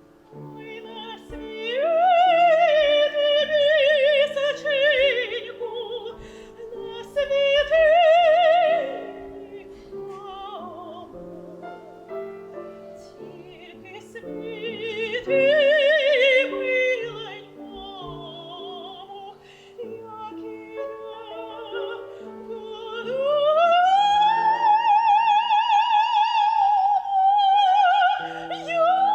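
Operatic soprano singing with piano accompaniment: several phrases with wide vibrato, then a long high note that rises in pitch and is held to the end.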